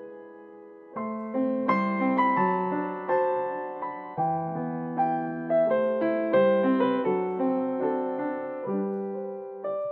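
Background piano music: a slow, gentle melody of struck notes that ring and fade, the first notes dying away before new chords come in about a second in.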